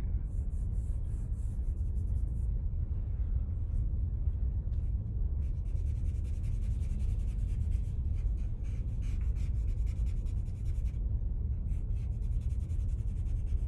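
Charcoal scratching and rubbing on drawing paper in quick repeated strokes, shading in a cheekbone, in two spells: the first couple of seconds and again from about five to eleven seconds in. A steady low hum runs underneath.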